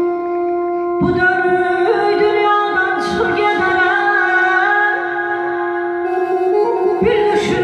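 A woman singing a wavering, ornamented melody over a steady held instrumental drone note. Her voice comes in about a second in, pauses for a moment and returns near the end.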